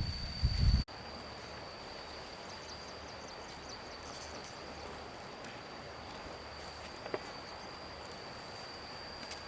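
A steady, high-pitched insect drone, such as crickets or cicadas, over quiet outdoor ambience. A louder, low handling or rustling noise in the first second cuts off abruptly.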